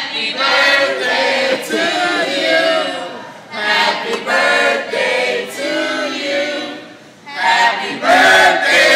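A group of restaurant staff singing a birthday song together in chorus. The singing comes in phrases, with short breaks about three and a half and seven seconds in.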